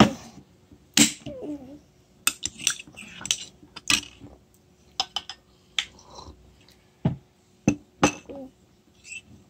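Metal spoon clinking and scraping against a small glass jar: about a dozen sharp, irregular clinks, some ringing briefly.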